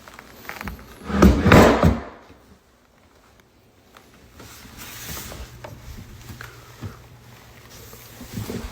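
A loud wooden sliding knock lasting under a second, about a second in, then quieter wooden handling noises.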